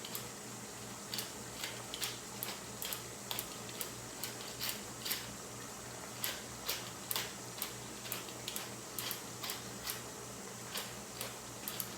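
Pepper mill being twisted to grind black pepper: a long run of short, sharp, irregular clicks, about two or three a second, over a low steady hum.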